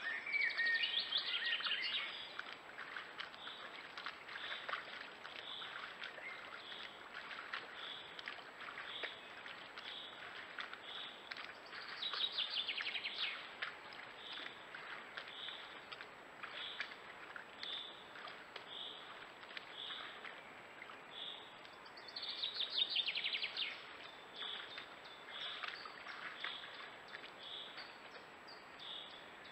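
Forest songbirds singing: one bird repeats a short high note about once a second, while louder trilled song phrases come at the start, about twelve seconds in and again about twenty-two seconds in. Soft water splashing from a deer wading through the shallow creek runs underneath.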